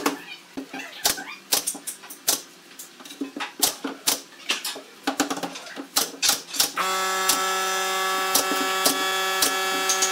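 Pneumatic nail gun firing a quick, irregular string of sharp shots into pine boards. About seven seconds in, a steady machine hum starts abruptly and runs under further shots.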